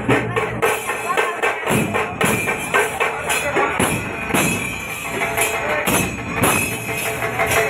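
Large double-headed bass drums beaten by hand in a steady, driving procession rhythm, with bright metallic clashing over the drum strokes.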